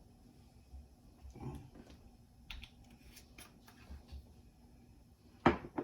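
Kitchen handling sounds: scattered light clicks and taps of containers and utensils, with one sharp knock about five and a half seconds in.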